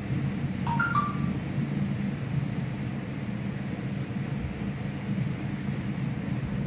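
Steady low hum of machinery in a small room, with a brief squeak about a second in.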